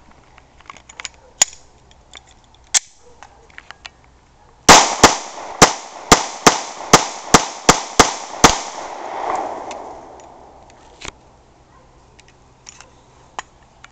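A few metallic clicks from handling an FMK 9mm pistol, then a rapid string of about ten 9mm pistol shots, roughly two and a half a second, followed by echo dying away off the trees.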